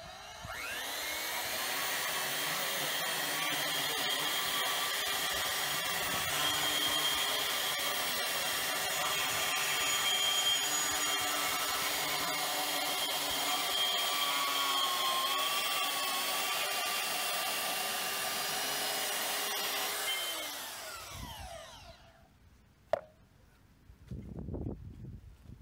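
Dewalt DWM120K portable bandsaw spinning up about half a second in and cutting through 1/8-inch-wall, 2-inch square steel tubing for about twenty seconds, a steady motor whine with small wavers in pitch, then winding down with a falling pitch once the cut is through. A sharp click and a few low knocks follow near the end.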